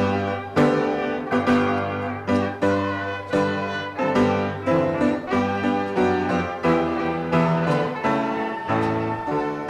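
Instrumental hymn introduction on a keyboard: full chords struck on a steady beat, with no singing.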